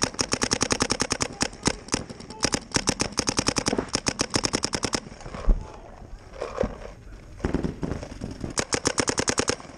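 Paintball markers firing rapid strings of shots, about ten a second, for about five seconds. After a pause with a single thump, another short burst comes near the end.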